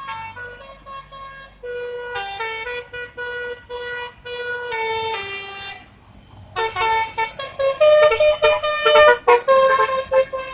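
Bus 'telolet' Basuri multi-tone air horn playing a melody of held notes that change in steps. There is a brief break about six seconds in, then a louder passage of several horn tones sounding at once.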